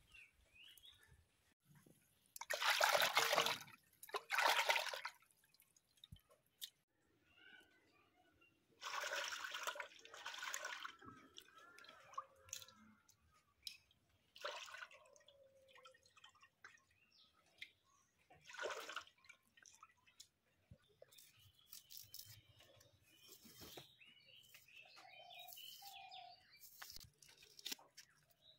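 Water splashing in a clay bowl as cut carp pieces are washed by hand, in several loud bursts: two close together a few seconds in, a longer one about nine seconds in, and shorter ones later. Near the end, faint ticking and scraping as a red onion is peeled on a boti blade.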